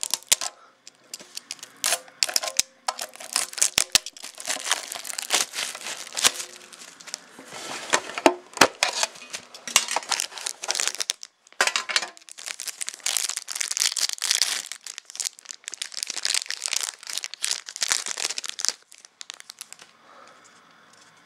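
Plastic shrink wrap crinkling and tearing as it is cut and pulled off a metal trading-card tin, full of small crackles and snaps. It dies away a couple of seconds before the end.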